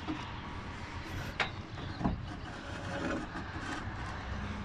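Two sharp knocks, a little over half a second apart, with rubbing and handling noise of plastic and metal parts as a replacement A/C condenser is worked into its seat behind the radiator core support.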